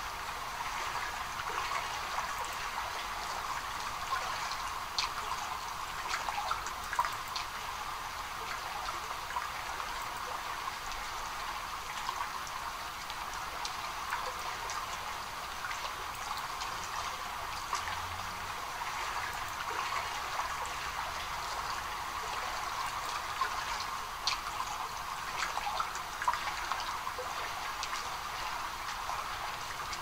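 Steady trickling of running water, with faint scattered ticks.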